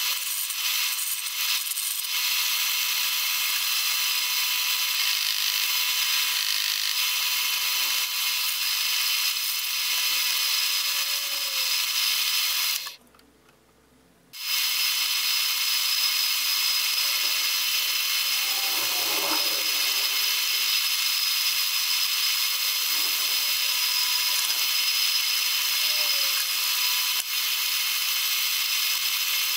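Metal lathe running with a steady high hum made of many tones, while the cutting tool turns a brass ring blank. The sound drops out for about a second and a half near the middle.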